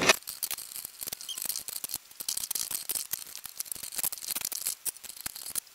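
Light, irregular clicks and rattles of 3D-printed plastic clock parts and metal nuts and threaded rods being unscrewed and lifted off as the clock is taken apart.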